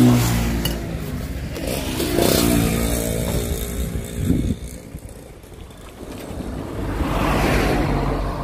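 Passing road traffic with motorcycles; one vehicle's noise swells and fades near the end.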